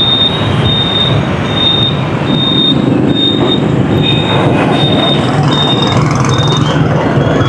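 Dense street traffic noise heard while riding through it: a steady rumble of engines and tyres. Over it, a high electronic beep repeats about once every 0.8 seconds, nine times, and stops shortly before the end.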